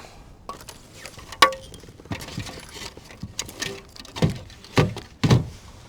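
Fish and gear being handled in a kayak: a sharp click about a second and a half in, then three dull knocks near the end.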